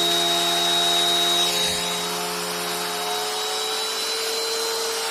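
Bissell PowerLifter Pet vacuum cleaner running, its motor whining steadily as it sucks up sawdust. The pitch rises slightly about two thirds of the way through.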